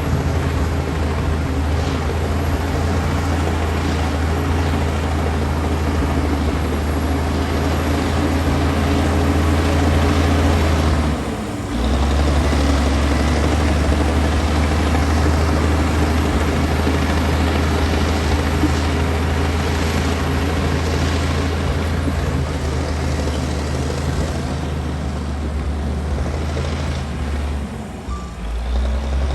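Komatsu D60P bulldozer's diesel engine running steadily under load as it works mud and soil, a deep continuous drone. The engine note dips briefly about 11 seconds in and shifts again near the end.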